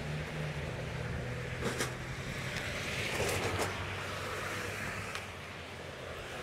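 A car moving at low speed: a steady low engine hum with road and tyre noise, and a few brief clicks.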